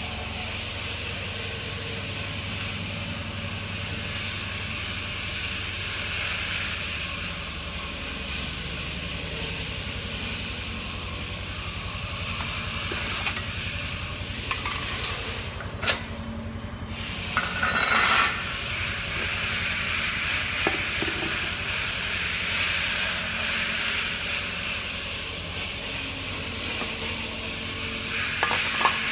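Steady workshop background noise: an even hiss over a low hum, with a brief drop about two-thirds of the way in followed by a short louder rush.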